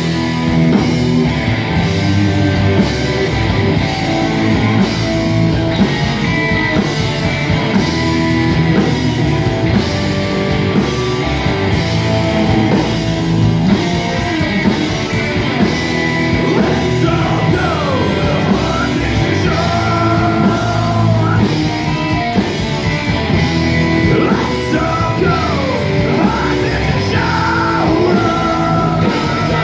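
Live rockabilly band playing loud and steady: two amplified electric guitars, an upright bass and a drum kit keeping a driving beat, with sliding notes coming in from about halfway through.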